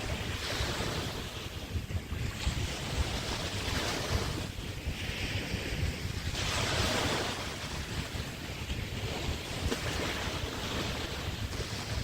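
Bay waves washing onto the beach, the hiss swelling and fading every few seconds, over a steady low rumble of wind on the microphone.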